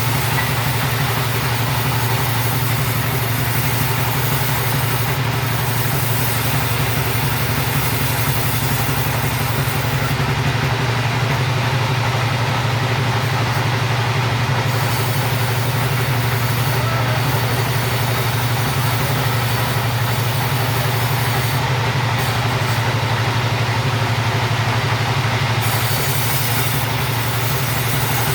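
Chainsaw running steadily without a break while cutting timber lengthwise into rafter stock.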